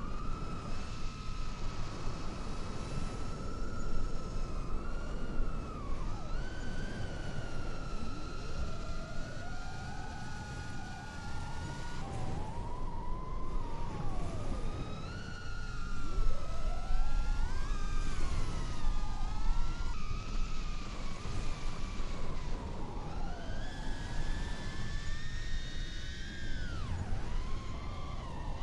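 FPV quadcopter's brushless motors whining, the pitch swooping up and down as the throttle changes, with sudden jumps where the flight clips are cut together.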